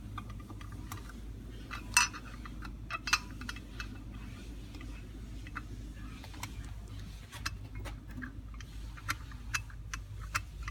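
Scattered small metal clicks and clinks as new main jets are handled and threaded by hand into a Rochester 2G carburetor body, with the sharpest clicks about two and three seconds in.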